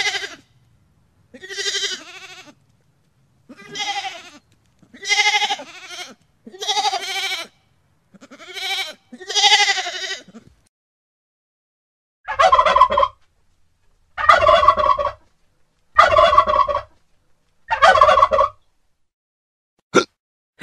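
A sheep bleating six times, each a wavering call of about a second. Then a turkey gobbling four times in a row, and a short sharp sound near the end.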